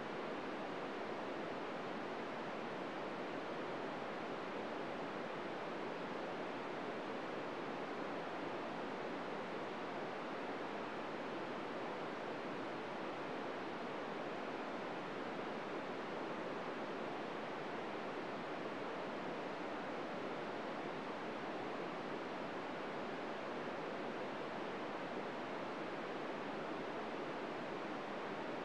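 Steady hiss of an FM receiver tuned to 145.800 MHz with the squelch open and no signal on it: plain radio static, with no SSTV tones coming through.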